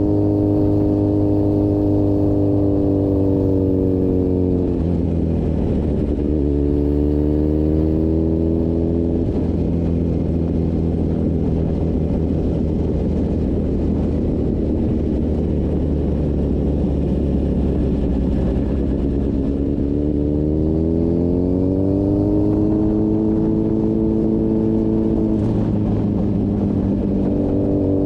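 Motorcycle engine and exhaust running at road speed over a steady low drone and wind noise. The engine note falls and climbs back up twice as the bike slows and speeds up again.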